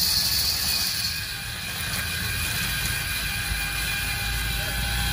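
Popcorn kernels poured into hot oil in a gas popcorn machine's stainless kettle, hissing and rattling and dying down about a second in. A steady low rumble and faint hum run under it as the machine works with its stirrer turning.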